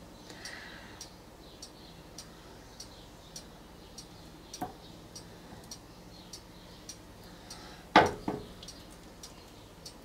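A stretched painting canvas being lifted and tilted by hand, with a loud knock about eight seconds in and a smaller one just after. Under it runs a faint, even ticking a little under two ticks a second.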